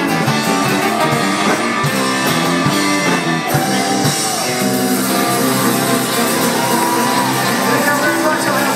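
A band playing live: guitar and other instruments with singing.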